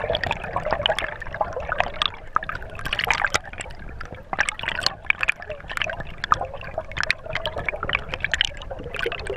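River water heard underwater: a dense, irregular crackling and gurgling of moving water and bubbles over a steady low rumble, as picked up by a submerged action camera in a shallow riffle.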